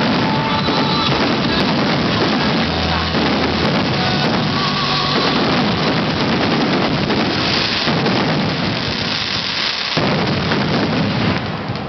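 Dense, continuous barrage of fireworks bursts, with music playing underneath. It eases a little just before the end.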